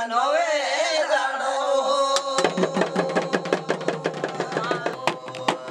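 Male folk singing: a lead voice holds and bends long notes. About two and a half seconds in, stick-beaten double-headed barrel drums come in with a fast run of strokes under steady sustained tones.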